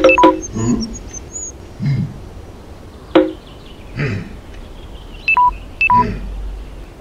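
Cartoon sound effects of a stick tapping a log used like a phone: short electronic keypad beeps, two of them close together near the end, with a hollow wooden knock. A caveman character grunts and mutters between the taps.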